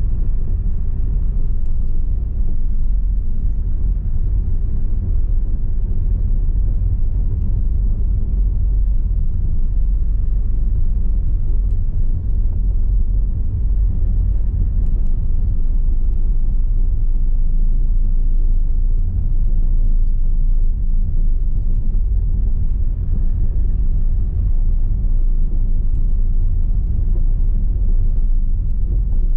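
Steady low rumble of a car driving slowly over cobblestone streets: tyre and road noise with the engine running underneath.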